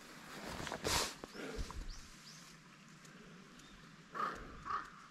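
A crow cawing in a series of evenly spaced calls, about two a second, starting near the end. Earlier there is a brief rustle about a second in and faint high bird chirps.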